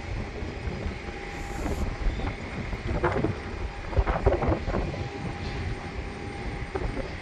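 Wind buffeting the microphone over a steady low rumble, with a faint steady tone underneath and a few short knocks and rustles about three and four seconds in.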